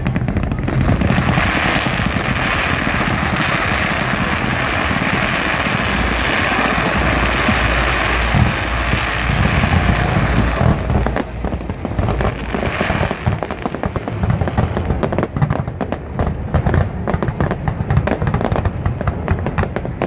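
Fireworks display: a dense, continuous wash of crackling for about the first ten seconds, then a rapid run of separate sharp cracks and bangs.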